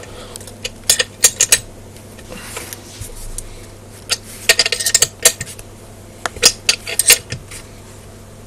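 Small metal hand tool clinking against nuts and bolts on a rotator's metal gearbox housing as they are done up: sharp, irregular clinks in short clusters, with quiet gaps between.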